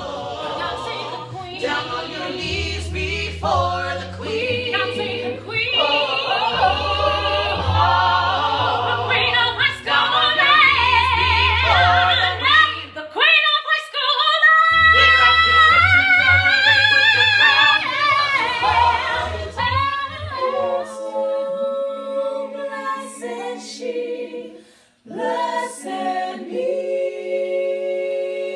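Small mixed ensemble of male and female voices singing a musical-theatre song in harmony, with held notes and vibrato. It breaks off briefly just past halfway and again near the end, then goes on with held chords.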